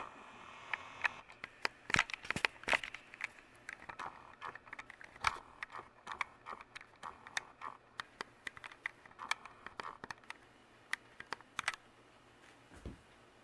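Harbor Breeze Troches ceiling fan running on medium speed with a faint steady hum, under many irregular clicks and crackles.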